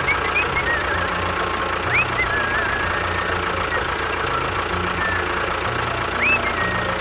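A small motor running steadily, with a few short rising-and-falling whistle-like glides over it, about two seconds in and again near six seconds.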